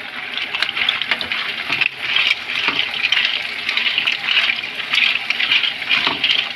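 Mussels sizzling hard in a frying pan of hot butter and garlic just after going in, a steady hiss with fine crackling spatter.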